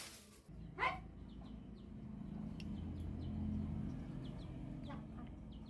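A chicken clucks once loudly about a second in and once faintly near the end, with small birds chirping briefly and a low steady rumble underneath.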